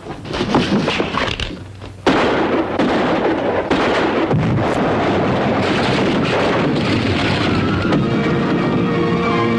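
A few sharp knocks, then a sudden loud blast about two seconds in that carries on as a heavy, sustained rumble, with music rising through it near the end.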